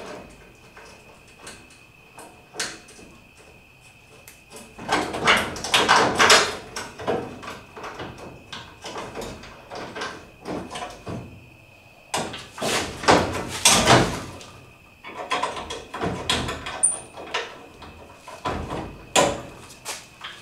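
A car's front bumper being handled and offered up to the front end: irregular knocks, scrapes and rattles as it is shifted against the body, coming in several clusters with quieter gaps between.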